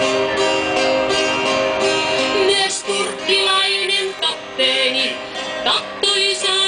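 Live acoustic guitar strummed by a man, joined about three seconds in by a woman singing into a microphone, the two amplified over a PA loudspeaker.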